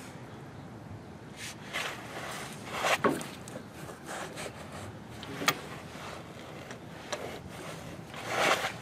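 Heavy steel chain links being shifted by hand around a grease fitting: scattered scrapes and clinks, with a sharp knock about three seconds in and another about two and a half seconds later, and a longer scrape near the end.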